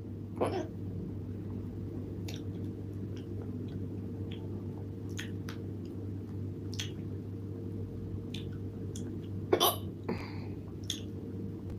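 A woman hiccuping loudly: one sharp hiccup about half a second in and two close together near the end, with fainter clicks between them, over a steady low hum.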